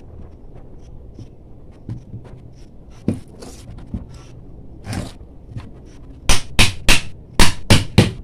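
A hammer tapping on a small sewing machine motor during reassembly: a quick run of about eight sharp knocks near the end, after small clicks and knocks of the parts being handled.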